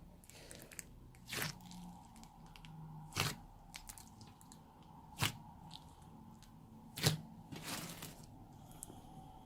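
Old slime being mixed by hand: sharp crackling pops about every two seconds, with a softer crunchy rustle after the last pop.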